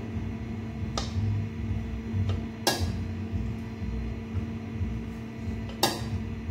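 A spoon knocks three times against a metal pot and plate as stew is dished out, over a steady low hum.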